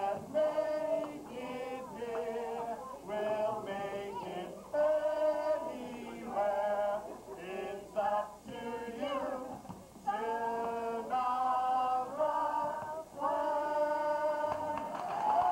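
A group of men and women singing a song together, with held notes.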